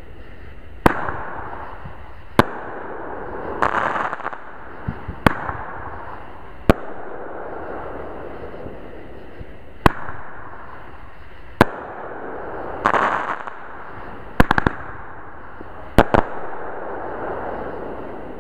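Consumer aerial fireworks bursting overhead: a string of sharp bangs at uneven intervals a second or a few seconds apart. A rapid triple comes about fourteen seconds in and a quick pair near the end. Two longer crackling bursts come about four and thirteen seconds in.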